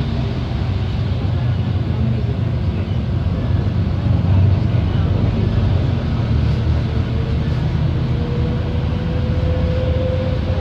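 London double-decker bus heard from inside, its engine running with a steady low drone as it drives. A faint whine rises slowly over the last few seconds as the bus picks up speed.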